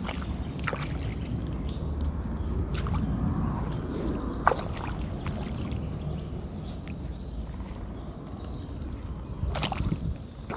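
Feet in muddy white ankle socks squelching and sloshing in a shallow mud puddle, with a few separate wet steps spread through, the sharpest about halfway.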